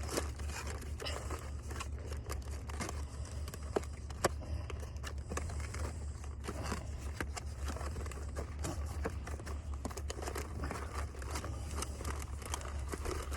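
Food packaging being handled: light crinkling and rustling with scattered small clicks, over a steady low hum.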